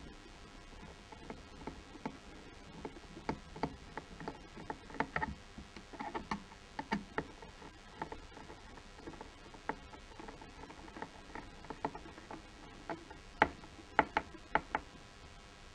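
Screwdriver working small screws in the plastic back of a steering wheel: scattered light clicks and taps of tool against screw and housing, with a quick run of sharper clicks near the end.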